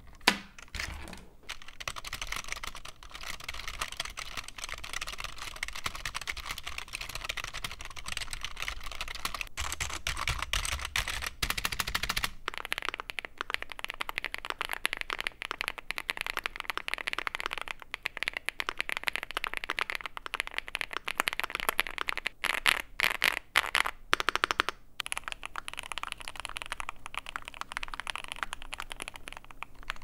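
Fast continuous typing on three keyboards in turn: first a $9 budget gaming keyboard, then a stock Rainy75 mechanical keyboard, then an Iskar65 custom build with lubed and filmed Alpaca linear switches, TX AP stabilizers, a PC plate and foam. The character of the key clatter changes about twelve seconds in and again about twenty-five seconds in.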